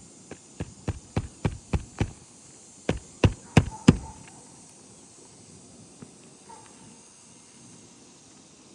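Hammer driving roofing nails through shingles into the roof deck: a run of seven strikes about four a second, a short pause, then four louder strikes.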